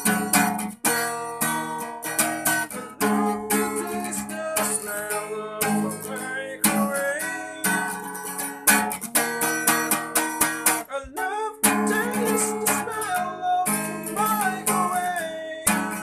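Acoustic guitar with a capo strummed in a steady rhythm of chords, with a brief break about eleven seconds in.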